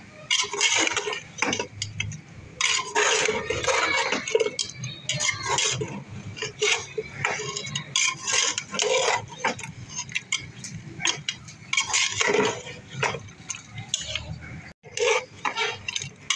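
A metal spoon scraping and clinking against the inside of a metal pot in quick, irregular strokes as beef pieces in a thick yogurt masala are stirred and fried.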